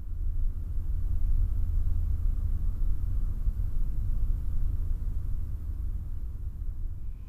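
A deep, low rumble that swells in at the start and slowly fades toward the end, laid over the title card.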